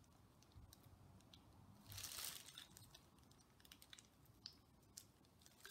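Faint plastic crinkling and small clicks from gloved hands working a squeeze bottle of tie-dye, with a brief louder rustle about two seconds in.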